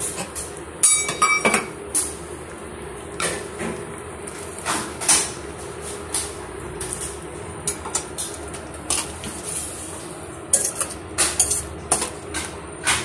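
Metal spoon stirring watery curry gravy in a steel kadai, with irregular clinks and scrapes against the pan, and a brief ring about a second in. The stirring mixes in the water just added to the gravy.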